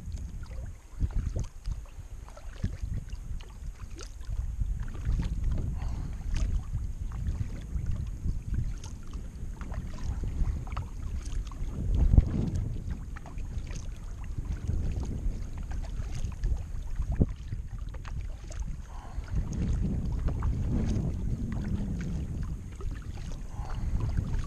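Kayak paddling: water splashing and dripping off the paddle in short, irregular strokes, over a steady low rumble of wind on the microphone, with one louder splash about halfway through.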